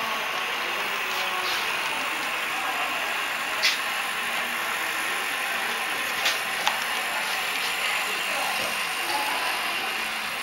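HO-scale model train running on the layout: a steady mechanical whir with three sharp clicks.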